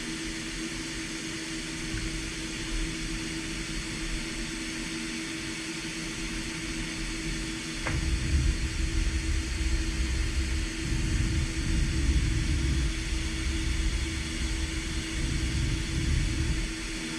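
DMG MORI M1 3-axis CNC milling machine running while machining a steel part: a steady machine hum with a constant tone. A low rumble grows heavier about eight seconds in and stays heavier for most of the rest. There is a single short click at about the same moment.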